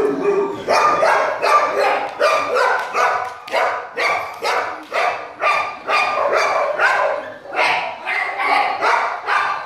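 Dog barking over and over, about two to three barks a second.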